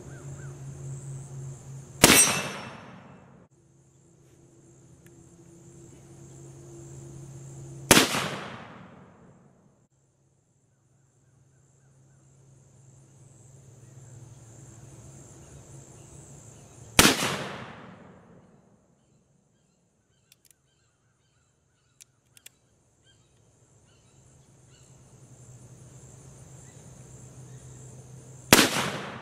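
Long-barreled black-powder cap-and-ball revolver firing four single shots, several seconds apart. Each shot is a sharp crack that echoes away over about a second.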